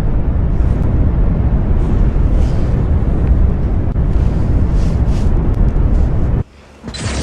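Deep, steady rumbling noise presented as the sound of a moon, a space-ambience rumble heavy in the bass with a faint hiss on top. It cuts off abruptly about six seconds in.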